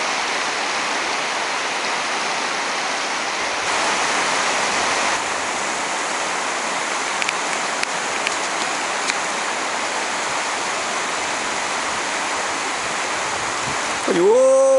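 Steady rush of flowing river water. About fourteen seconds in, a person lets out one long yell that rises and then falls in pitch.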